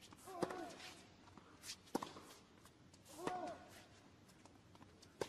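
Tennis rally: a racket strikes the ball four times, about every one and a half seconds. Every other strike comes with a player's short grunt.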